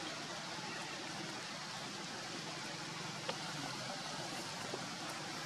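Steady background hiss, with a couple of faint ticks about three and five seconds in.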